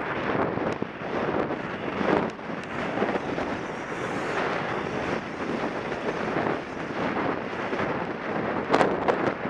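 Wind rushing over a helmet-camera microphone while a horse gallops, with the uneven thud of its hoofbeats on the dirt track, and a couple of sharp knocks near the end.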